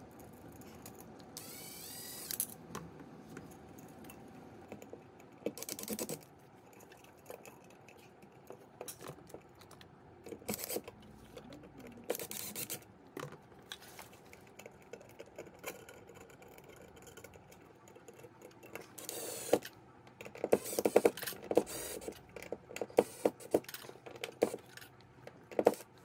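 Small clicks, taps and scrapes of screws and a GFCI outlet being handled and fastened back into the wall box, scattered at first and coming thick and fast in the last several seconds.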